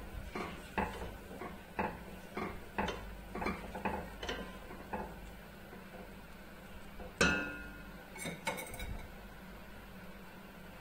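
Wooden spoon stirring a pot of coconut milk and corn in a stainless steel pan, knocking against the side about twice a second. About seven seconds in comes a louder clank that rings briefly, then two more knocks, and the stirring stops.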